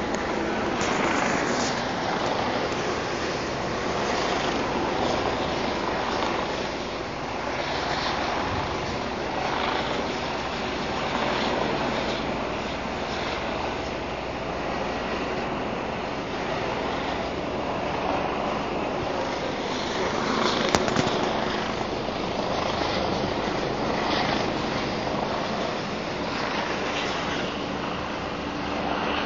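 Steady rumbling roar of a helicopter flying overhead, with one sharp click about two-thirds of the way through.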